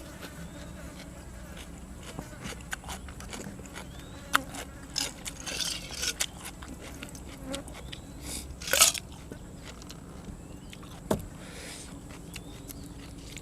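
A person eating grilled squid with fresh vegetables close to the microphone: biting and chewing, with scattered crunches and clicks. The loudest crunch comes about nine seconds in.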